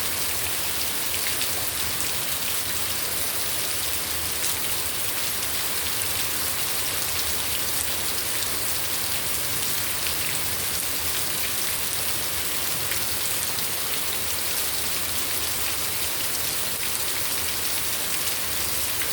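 Steady rain falling, a constant hiss with many fine drop patters.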